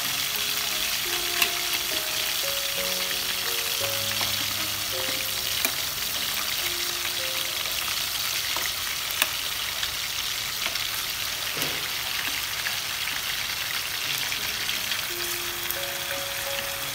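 Pieces of marinated field rat sizzling steadily as they fry in hot oil in a frying pan, with a few sharp clicks as more pieces are added with chopsticks.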